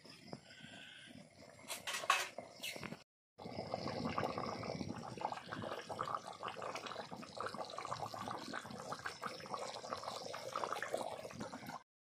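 Thin chicken-and-potato curry boiling in an open metal pan: a steady crackle of bubbles bursting at the surface. A knock about two seconds in, and a brief dropout just after.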